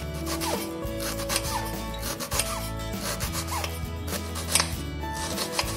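Kitchen knife cutting through a red onion in a series of short cuts, over background music.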